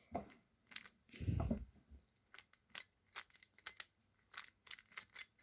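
A 3x3 Rubik's cube being turned by hand: quick faint plastic clicks as the layers are twisted, coming faster in the second half, with a soft low thump about a second and a half in.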